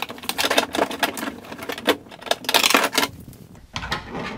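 Quick clicking and rattling of the old tailgate wiring harness, its plastic connectors and clips knocking against the sheet-metal tailgate as it is pulled out through the opening. The rattling dies down about three seconds in.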